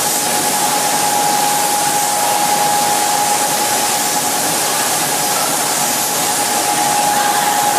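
Automatic spray guns on a reciprocator in a fluorocarbon paint spray booth, with a steady, unbroken hiss of atomising spray and booth air and a constant mid-pitched whine running under it.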